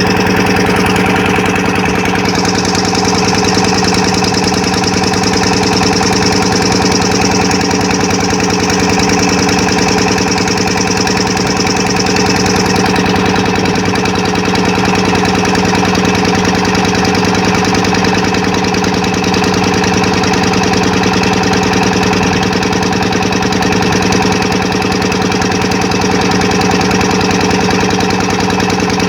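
An engine running steadily at a constant speed, an even droning hum that does not change.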